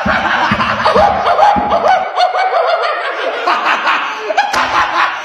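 People laughing hard, in snickers and chuckles.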